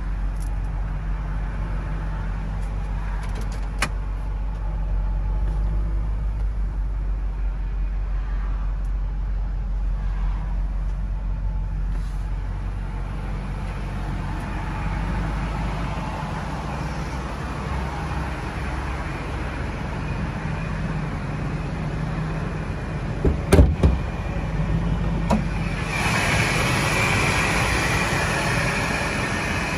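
The supercharged 5.4-litre V8 of a 2000 Ford F-150 SVT Lightning idling with a steady low hum. A couple of sharp thumps come about two-thirds of the way through, and near the end the engine sound turns louder and brighter, heard from the open engine bay.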